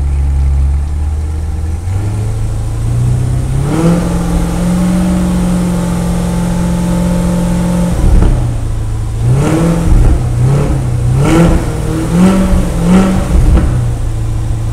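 Chevrolet Corvette C8's 6.2-litre naturally aspirated V8 revved while parked, heard at its quad exhaust: it idles, climbs to a held rev for about four seconds that drops back, then gives about five quick throttle blips and settles back toward idle near the end.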